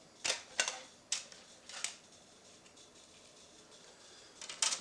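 Sharp plastic clicks and snaps of a CD and its case being handled: four in the first two seconds, then a quick double click near the end.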